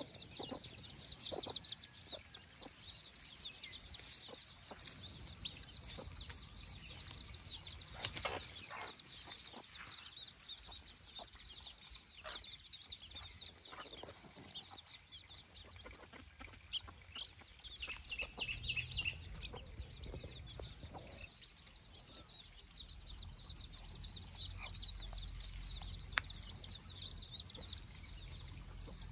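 A brood of young nati koli (country-breed) chicks peeping continuously, many high-pitched peeps overlapping, with the mother hen clucking now and then.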